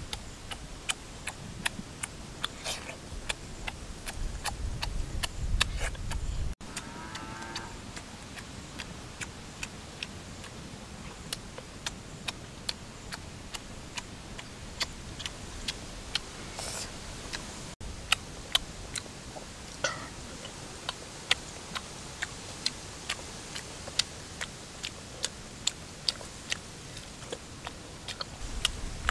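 Someone chewing food with wet lip smacks and mouth clicks, coming irregularly a few times a second over a steady hiss.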